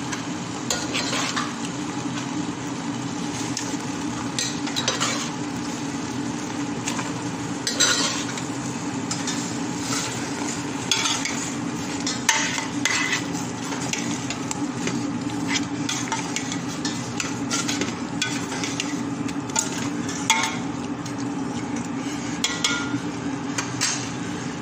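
Metal spatula stirring black-eyed beans in a steel pot of frying vegetables, with frequent irregular scrapes and knocks against the pot over a steady sizzle. A constant low hum runs underneath.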